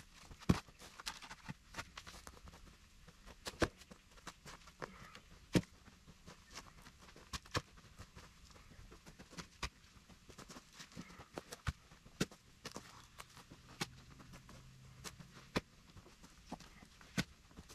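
Footsteps and handling sounds: scattered sharp clicks and knocks at irregular intervals, with no saw running.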